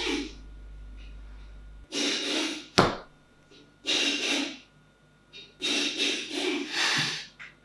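Off-camera clattering noise: four or five short scraping, rustling rushes, with one sharp clank about three seconds in.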